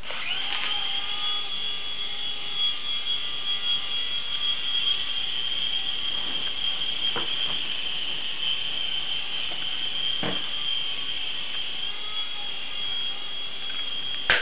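Mini remote-control helicopter's electric motor and rotor running with a steady high-pitched whine. It starts at the outset and cuts off suddenly at the end with a brief knock.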